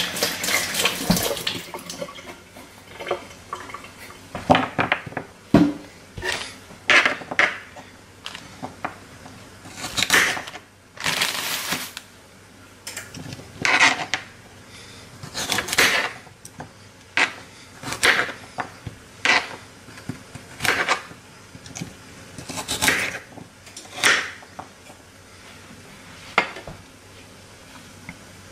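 Kitchen knife chopping baby carrots on a plastic cutting board: separate crunchy cuts, each ending in a knock of the blade on the board, about one every second or two.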